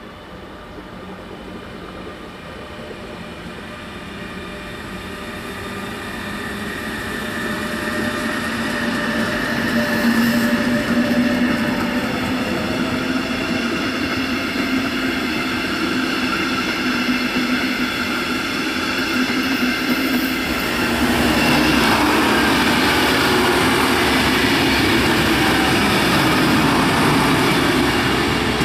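An electric locomotive hauling double-deck coaches passes, its steady whine and rolling wheels growing louder over the first ten seconds. About twenty seconds in, a class 612 diesel multiple unit passes closer, its engines and wheels adding a louder running sound.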